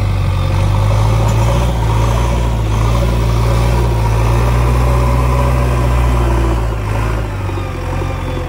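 JCB 3DX backhoe loader's diesel engine running steadily under load as its front loader bucket pushes into soil and roots; the engine note eases somewhat about seven seconds in.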